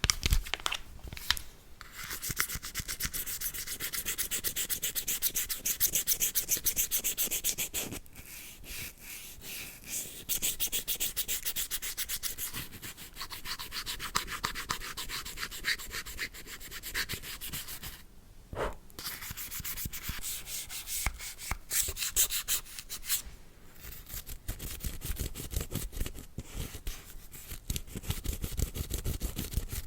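A bristle brush scrubbing in quick back-and-forth strokes over the hard surface of a handheld device. The scrubbing comes in several runs with short pauses between them.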